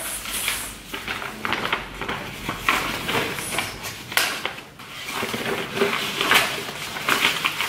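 Sheets of paper rustling as they are handled and shuffled, in irregular short crackles.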